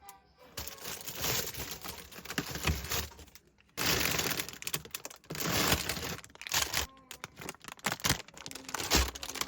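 Plastic bags and food packaging crinkling and rustling in irregular bursts, with sharp clicks and knocks as ingredients are handled and taken out of a refrigerator.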